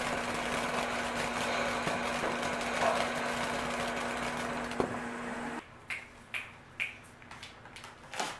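Gold Dust ground fountain firework spraying sparks: a steady hiss with scattered crackles over a steady low hum. The sound cuts off abruptly about two-thirds through, and a few short soft knocks follow as a cardboard firework box is handled and set down.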